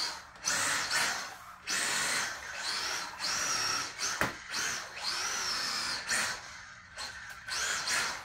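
A Losi Mini-T 2.0 RC truck's brushless electric motor and drivetrain whining in short, repeated throttle bursts. The pitch rises and falls with each burst, and there is a sharp click about four seconds in.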